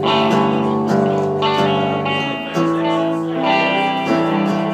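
Acoustic and electric guitars playing chords. A new chord is struck every half second to a second, and each one rings on.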